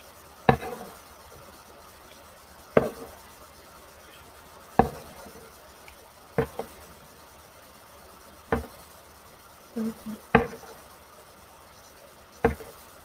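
A series of short, sharp knocks or taps, about one every two seconds, with a pair of quick softer ones just before a louder tap late on.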